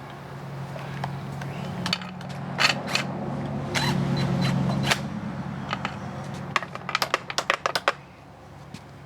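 Clicks and metallic clinks from the recoil starter of an Evinrude 4 hp outboard being worked by hand, as the starter is pulled and pushed to draw its coil spring back in. A low hum sits under the first half, and a quick run of clicks comes near the end.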